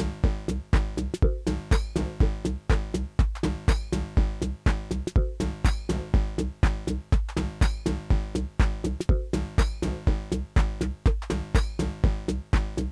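Live techno played on hardware drum machines and analogue synthesizers: a steady kick drum about twice a second under a repeating synth bass line and bright percussion hits.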